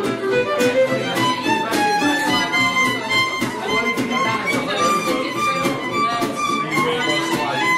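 Gypsy jazz violin playing a bowed melody with sliding notes over an acoustic guitar's steady strummed rhythm.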